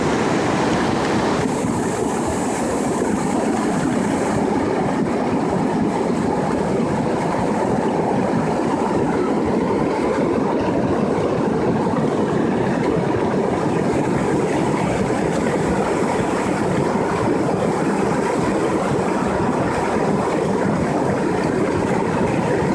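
Floodwater rushing in a steady, loud torrent, with an added high hiss for a couple of seconds near the start.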